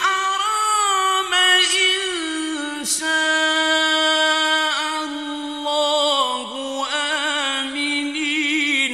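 Male Quran reciter chanting in the mujawwad style, one voice drawing out long melodic notes that step slowly down in pitch, with quick warbling ornaments in the second half.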